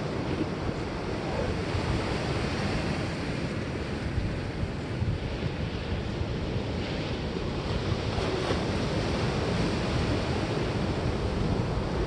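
Ocean surf washing steadily, with wind rumbling on the microphone.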